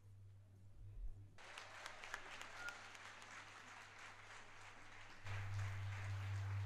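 Audience applause starting about a second and a half in, faint and steady, over a low hum that grows louder about five seconds in.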